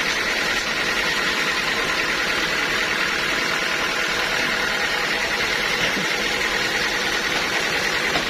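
Sawmill machinery running steadily, an even mechanical noise with a faint high whine that holds constant throughout.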